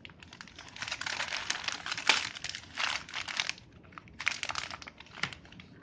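Clear plastic bag of foil-wrapped dog treats crinkling as a chihuahua noses and tugs at it. The crinkling runs in a dense stretch for about three seconds, then comes in a shorter burst near the end.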